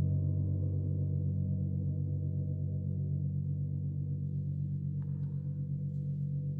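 Gong ringing on after being struck, a deep hum of many overlapping tones that slowly fades with a gentle wavering pulse.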